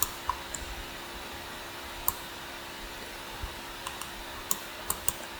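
Scattered clicks of a computer mouse or keyboard, about eight over a few seconds, over a steady low hum.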